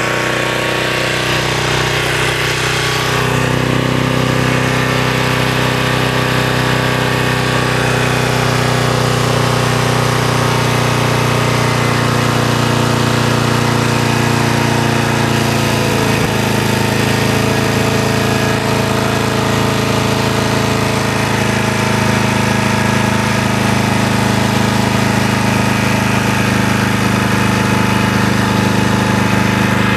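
Antique gasoline generator engine running steadily with a work light connected as its load. Its pitch shifts and settles about three seconds in.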